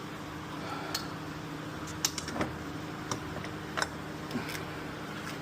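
A handful of short, light clicks and clinks from hands and tools disconnecting wiring and loose parts in a car's engine bay, over a steady low hum.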